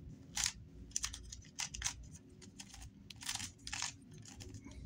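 GAN 356 Air Magnetic 3x3 speedcube being turned through a G-perm: a quick, uneven run of light plastic clicks and clacks as the magnetic layers turn and settle into place.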